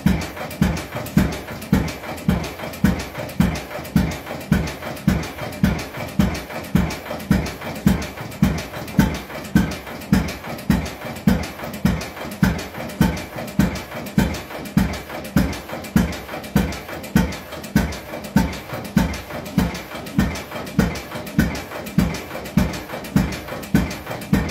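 6 hp Famous hit-and-miss stationary engine running warmed up, its exhaust puffing in an even beat of about two strokes a second.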